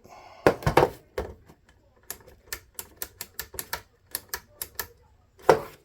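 Push-button map light switch on a truck's overhead console clicking repeatedly, about four sharp clicks a second, with a few heavier plastic knocks near the start and near the end. The button has been freshly super-glued onto the switch, and the clicking is a test of whether it holds.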